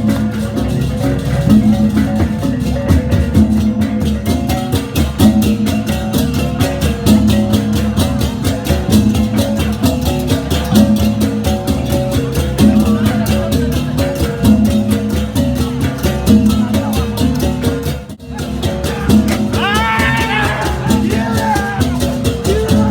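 Music with fast, evenly spaced percussion strokes over a repeating pattern of low pitched tones; a voice is briefly heard near the end.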